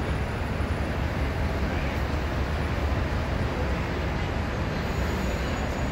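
Steady low rumble and hiss of outdoor urban background noise, with no distinct events.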